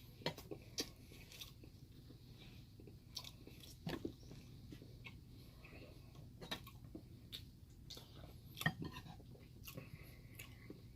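Faint close-up chewing and mouth sounds of someone eating a curry meal, with scattered soft clicks and smacks, a couple of them louder about four and nine seconds in.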